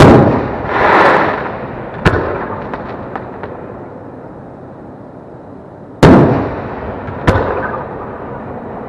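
6-inch aerial firework shells: a shell bursts with a loud boom that rolls off in echo, then a sharp mortar launch crack about two seconds in, followed by a few small pops. A second shell bursts with a loud echoing boom about six seconds in, and another launch crack follows a second later.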